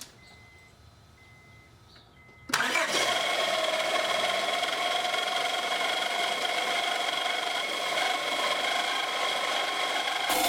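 1998–2002 Honda Accord 2.3 L four-cylinder engine starting about two and a half seconds in, then running with a loud, steady grinding rattle and whine from its failing alternator, which has come apart and shed metal shavings. Before it, a faint repeated beeping chime.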